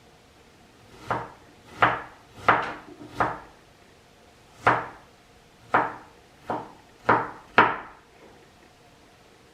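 Kitchen knife chopping onion and garlic on a cutting board: about nine separate, unevenly spaced chops.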